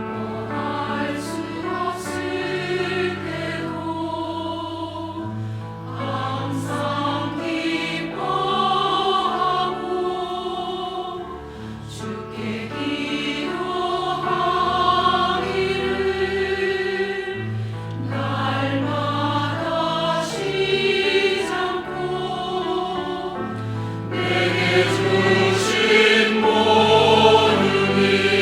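Church choir singing an anthem in harmony over held bass notes of an instrumental accompaniment, growing louder near the end.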